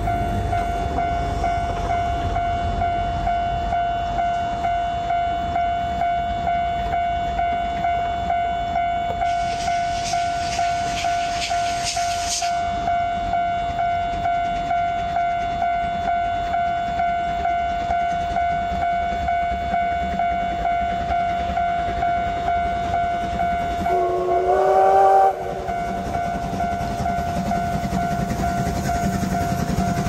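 Japanese level-crossing alarm ringing in steady repeated strikes. About 24 seconds in, a steam locomotive's whistle sounds once for over a second, the loudest sound. Near the end the rumble of the approaching train grows.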